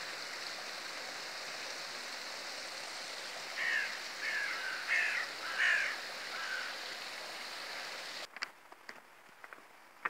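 Small stream of water pouring from an outlet at the base of a brick wall: a steady rushing. About midway a crow caws four or five times. The rushing cuts off suddenly near the end, leaving a few light clicks.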